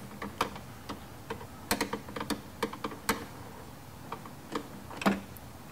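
Irregular sharp metallic clicks and ticks from a long T30 Torx bit and its driver being worked to loosen a deep-set headlight mounting bolt.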